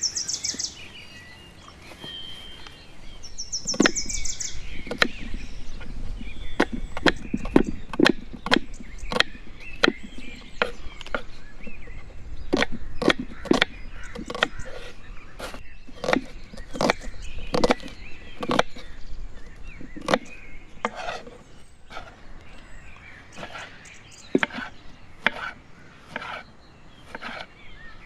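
Chopping on a wooden board: a long run of sharp, irregular strikes, about one to two a second. Birds chirp briefly near the start.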